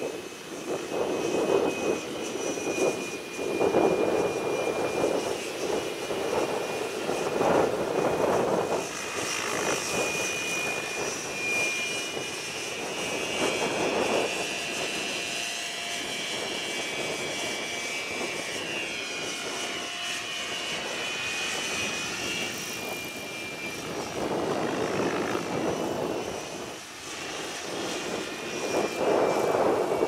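Align T-Rex 760 electric RC helicopter in flight: a steady motor and rotor whine, its pitch shifting up and down while it manoeuvres in the middle. Gusts of strong wind buffet the microphone near the start and again near the end.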